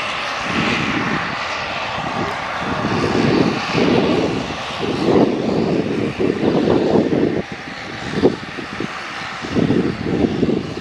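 Turboprop engines of a twin-engine military transport plane running as it taxis. A steady hissing whine sits over an uneven low rumble that swells and fades every second or two.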